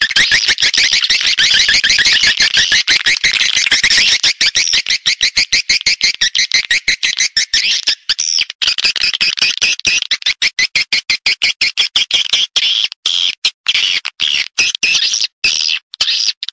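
Swiftlet calls played as a lure track for a swiftlet house: a dense, fast train of high twittering chirps, many per second, that breaks into short gaps in the second half.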